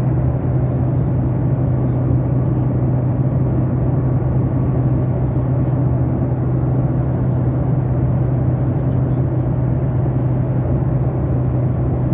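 Steady low drone of an airliner cabin: engine hum and rushing air noise, unchanging throughout.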